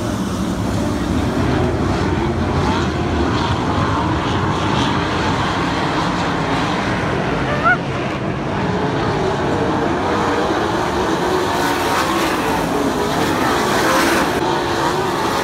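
A field of winged dirt-track sprint cars racing, their V8 engines running hard at high revs, the pitch wavering as cars pass and back off for the turns. There is a brief click about halfway through.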